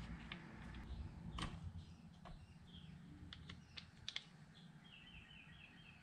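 Faint scattered clicks and light taps of plastic chainsaw parts being handled as the carburetor and intake are worked loose by hand. Near the end a bird chirps a quick run of short notes.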